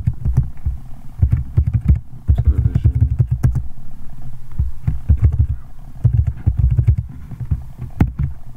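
Computer keyboard being typed on in several short bursts of keystrokes, each stroke a dull, low thud.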